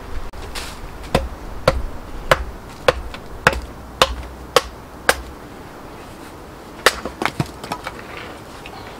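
An axe knocking into a small stick of kindling stood on a wooden chopping block, splitting it. About eight sharp knocks at roughly two a second, a pause, then a few quicker knocks near the end.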